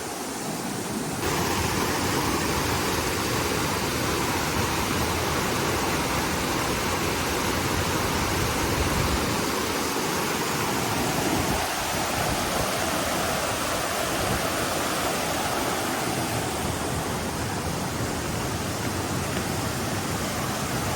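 Rain-swollen mountain stream pouring down small waterfalls: a steady rush of water, which gets louder about a second in.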